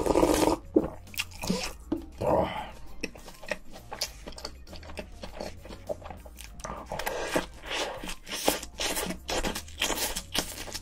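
Close-miked eating: a couple of gulps from a noodle cup near the start, then crisp crunching bites and chewing of a fried, breaded snack, with many sharp crackles.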